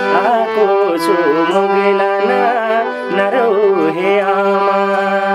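Instrumental break in a Nepali folk song: a melody with sliding, bending notes over a steady held drone.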